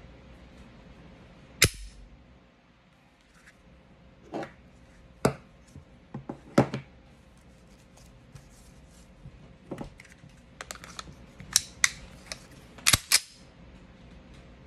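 Sharp plastic-and-metal clicks and clacks of a Smith & Wesson M&P Shield Plus 9mm pistol being handled and put back together, with quieter ticks between. There is a loud click about two seconds in and a quick double click near the end.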